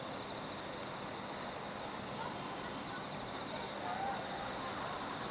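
Steady outdoor night ambience: an even background hiss with a constant high band, and faint distant voices about two to four seconds in.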